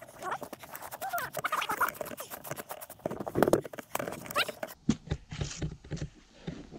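Boots crunching and scuffing through deep snow down a steep bank, with a few short grunts of effort in between.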